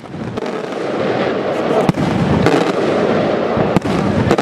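Aerial fireworks bursting in a finale barrage: a dense, continuous crackle from many shells at once, building over the first second, with sharp reports standing out about two seconds in and again near the end.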